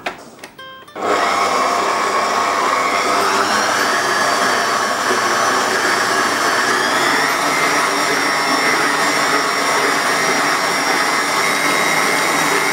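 Electric stand mixer switched on with a click or two of its speed dial, its motor starting about a second in and then running steadily, the flat beater creaming soft butter and sugar in a stainless steel bowl. The motor's pitch rises slightly a few seconds in.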